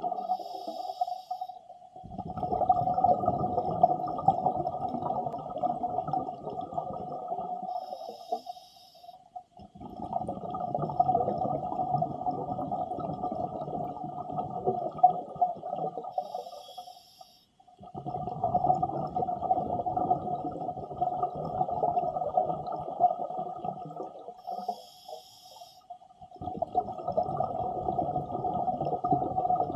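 Scuba diver breathing through a regulator underwater, in a slow regular cycle. Each breath is a brief hissing inhale followed by a long exhale of rumbling, bubbling noise lasting about six seconds, about four breaths in all.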